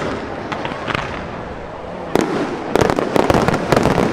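Aerial firework shells bursting over a continuous rumble, with scattered bangs at first and then a rapid string of sharp cracks and reports from about halfway through.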